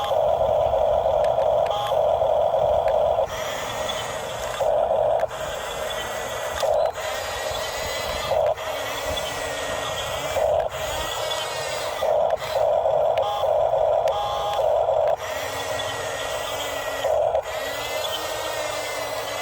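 Electric motors and plastic gearboxes of remote-control construction models whining as they run, starting and stopping in short bursts, with a whine that rises and falls in pitch as the motors speed up and slow down.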